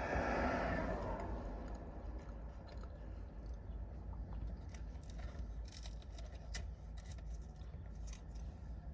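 A passing vehicle fades away in the first second, then close-up eating sounds: chewing with crisp crunches and sharp clicks from a chicken tostada bowl, thickest in the second half.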